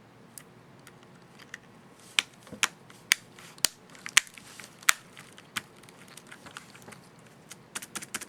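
Keys of an HP ProBook 4540s laptop keyboard being pressed: a run of sharp, irregular clicks, loudest in the middle and lighter and quicker toward the end.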